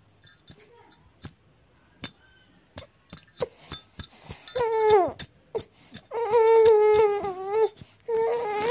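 Baby crying: a few faint clicks, then from about halfway a run of long, wavering cries, the first falling in pitch and the next two held longer.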